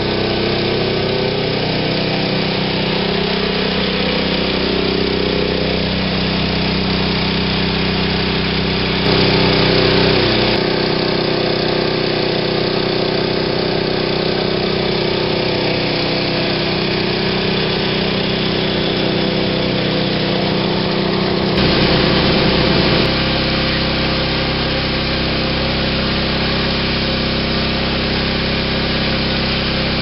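Pressure washer running steadily, its engine drone under the hiss of water jetting from a rotary surface cleaner spinning over concrete. It grows louder twice, for a second or two each time.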